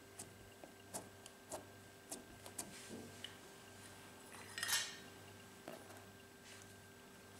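Soft slime pressed and poked with fingertips, giving small sticky clicks and pops over the first three seconds. About four and a half seconds in comes one brief, louder rattle of small hard objects being handled.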